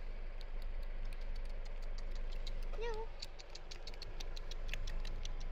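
A kitten mews once, a short wavering call about three seconds in, over a steady low hum and scattered light clicks.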